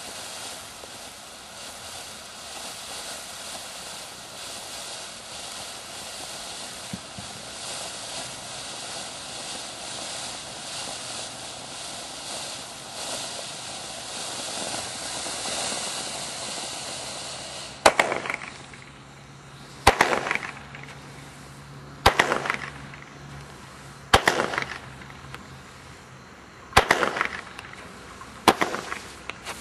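Dominator "Desert At Night" firework: a steady hiss for about eighteen seconds, then six loud bangs roughly two seconds apart, each trailing off in crackling.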